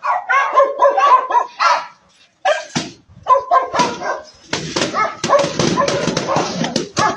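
A dog barking and yipping over and over in quick short calls, with a brief pause a little over two seconds in.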